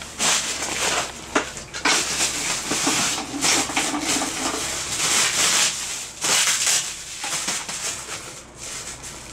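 Clear plastic packaging crinkling and rustling in irregular bursts as it is crammed by hand into a canvas waist bag, quieter over the last two seconds.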